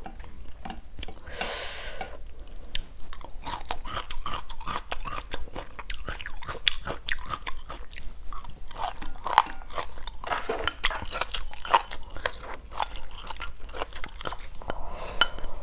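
Close-miked chewing with many wet mouth clicks and crunches as a person eats chewy chicken gizzards stir-fried with lemongrass and chili, along with rice.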